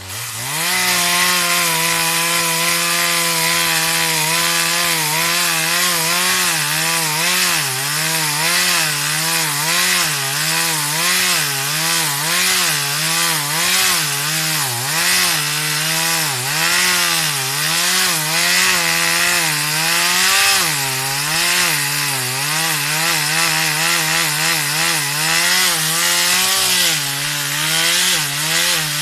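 Partner 340S two-stroke chainsaw revved up and cutting wood, its engine pitch dipping and recovering about once a second as the chain bites.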